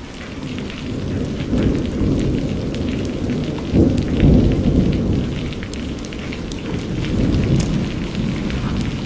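Steady rain with a patter of drops, under a low rumble of thunder that builds about a second in, is loudest around four seconds in, then slowly eases off.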